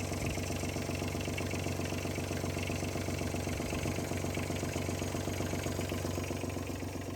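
Ranger Tug R-21EC's engine running steadily, a low even drone.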